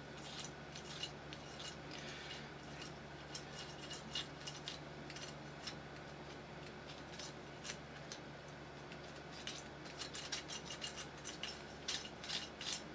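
Faint, scattered clicks and rubbing of hard 3D-printed plastic parts worked by hand, as stiff joints roughened by stray glue are loosened. The clicks come faster near the end, over a low steady hum.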